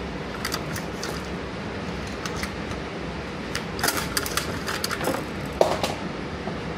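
Scattered sharp metallic clicks and clacks in small clusters, over a steady low hum: a bullpup 12-gauge shotgun being handled between shots.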